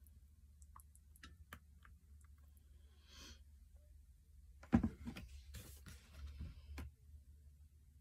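Faint handling noises of containers being moved on a worktop: scattered light clicks, a sharp knock just before halfway, then a couple of seconds of knocking and clatter.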